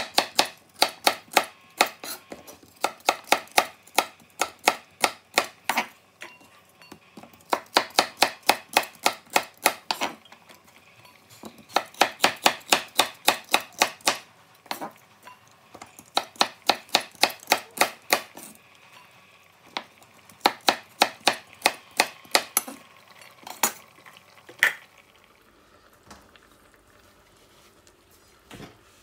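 Kitchen knife slicing vegetables on a wooden cutting board: runs of quick, even chops at about four a second, broken by short pauses, stopping a few seconds before the end.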